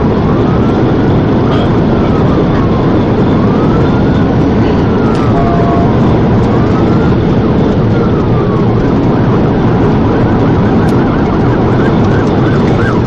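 Police car at pursuit speed: loud, steady engine, tyre and wind noise, with its siren wailing in slow rising and falling sweeps, switching to a fast yelp near the end.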